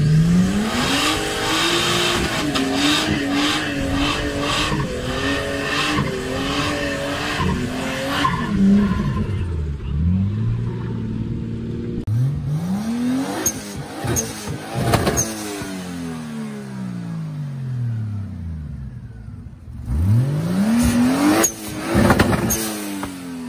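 Nissan Patrol's swapped RB25DET turbocharged straight-six revving hard as the truck spins its tyres through deep mud, held at high revs with the pitch wavering. In the second half the engine revs up and falls back several times, ending with sharp throttle blips.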